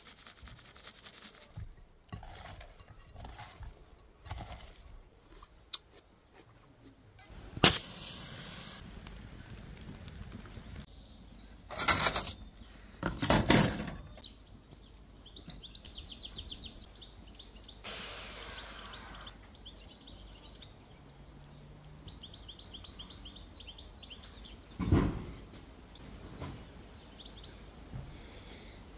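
Birds chirping in quick repeated phrases in the background, with a few sharp metallic clacks from long steel shashlik skewers handled on a wooden stump, the loudest two about a second and a half apart.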